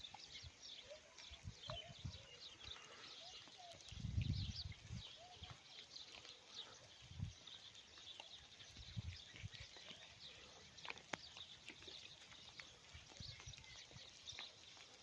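Many small birds chirping, a dense run of short high chirps overlapping throughout. A few low rumbles break in, the loudest about four seconds in.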